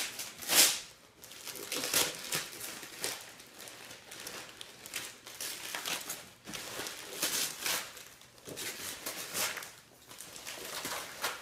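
Wrapping paper being torn and crumpled by hand as a wrapped present is opened, in irregular rips and rustles, the loudest about half a second in.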